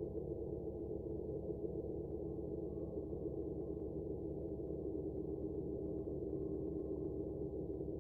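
Steady electronic drone of several held low tones, unchanging throughout, used as background sound for the cartoon.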